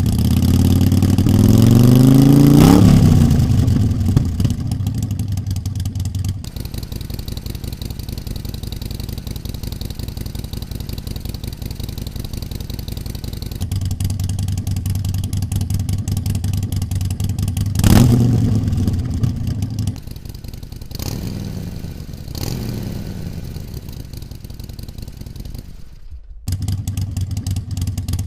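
Harley-Davidson Sportster Forty-Eight's air-cooled 1200 V-twin, stage-one tuned with a Screaming Eagle Heavy Breather intake, idling through an aftermarket-comparison exhaust. It is blipped up and back down about a second in and again past the middle, with two smaller blips after that. The idle's loudness steps up or down abruptly a few times.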